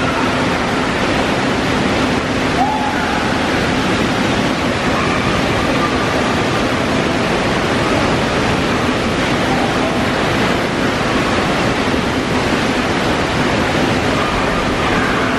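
Steady rush of an indoor wave pool, waves breaking and churning across the shallow end, with no pauses or distinct splashes.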